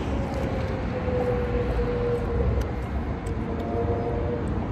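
Steady road-traffic rumble with a faint hum that slowly falls in pitch as a vehicle passes.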